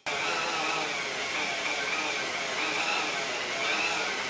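Handheld rotary tool (Dremel) spinning a wire wheel against a steel motorcycle frame, scrubbing off rust and paint: a steady high whine that wavers slightly in pitch over a dense scratching hiss. The cheap tool has run for an hour, is quite hot and is near the end of its life, by its owner's account.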